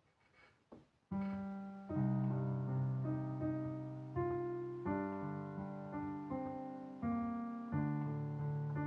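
Piano playing an easy arrangement of a song: a melody of single struck notes over held low chords, starting about a second in, each note ringing and fading before the next.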